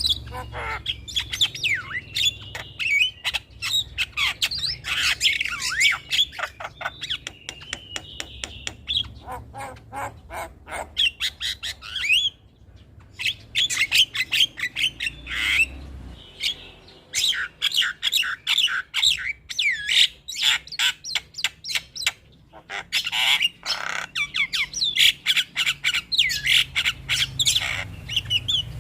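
Javan myna (jalak kebo) singing: a fast, jumbled stream of harsh squawks, clicks and whistled notes that bend in pitch, broken by a few short pauses.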